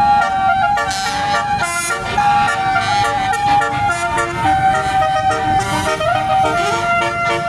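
A bus's Basuri telolet horn playing a tune: loud held notes that step up and down in pitch, one after another.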